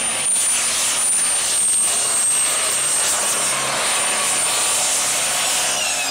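Four-turbo, three-stage turbocharged IHC 1086 pulling-tractor diesel running flat out under load as it drags the weight sled, with a high steady turbo whine. Near the end the whine falls away as the engine comes off full power.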